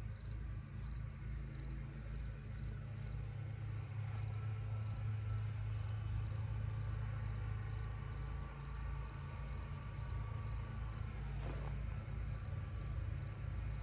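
Cricket chirping in an even rhythm, about two to three short, high chirps a second, over a low steady hum.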